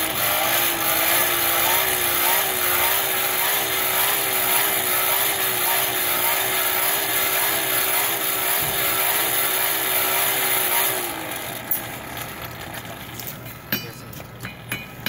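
Electric blower on a coal forge running: a loud rushing of air with a steady hum that rises as it spins up at the start, cutting off about eleven seconds in. A few light metallic clinks follow near the end.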